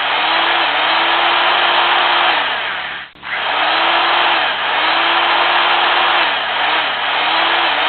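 Electric drill running, its motor whine repeatedly dropping in speed and picking up again. It stops for a moment about three seconds in, then starts up again.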